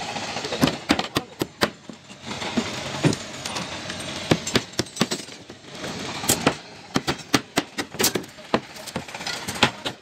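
Irregular sharp knocks and clanks, metal on metal, from work on steel slab shuttering plates and rebar, spread unevenly with short clusters of strikes.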